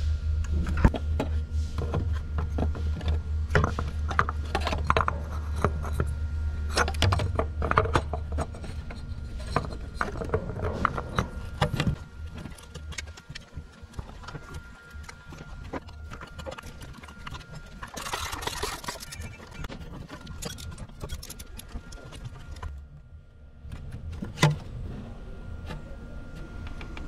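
Scattered clicks and knocks of metal parts being handled while a new water pump is fitted into a car engine's block, with a steady low hum that stops about a third of the way in and a short hiss past the middle.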